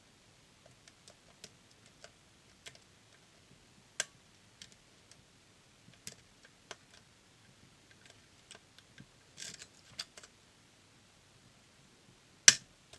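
Lock picking in a DOM System D dual-blade lock: irregular faint clicks and ticks of the pick and tension tool against the pins, with a short scratchy patch about nine seconds in and one sharp, louder click near the end.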